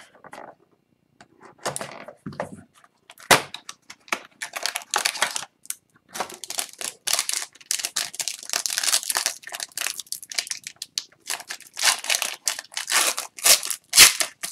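A sealed SP Game Used hockey card pack being torn open by hand, its wrapper crinkling and tearing. The rustles are sparse at first and turn into busy crinkling from about six seconds in.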